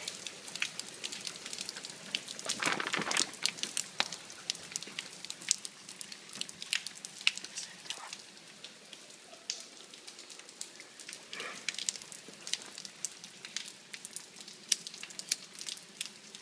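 Quiet handling noise: scattered small clicks and crackles of hands and clothing moving around the phone, with a soft rustling whoosh about three seconds in and again a little after the middle.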